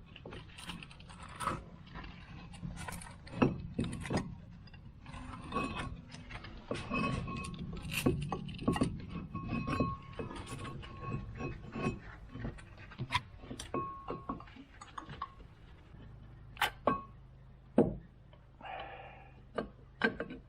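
Metal tools and brake parts clinking and knocking at a car's wheel brake: an irregular run of sharp clicks and taps, some of them ringing briefly. A low steady hum comes in over the last few seconds.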